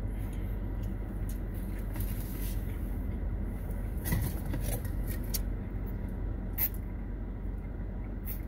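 Chewing noodles close to the microphone, with a few short mouth clicks, over a steady low hum in a car's cabin.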